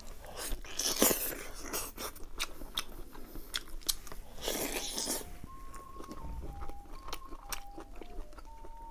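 Close-up eating sounds: biting into and chewing braised beef rib meat, with many short sharp mouth clicks.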